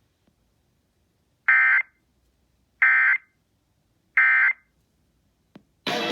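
Emergency Alert System end-of-message signal: three short bursts of SAME data tones about 1.3 seconds apart, which close the required weekly test. A click follows, and music starts just before the end.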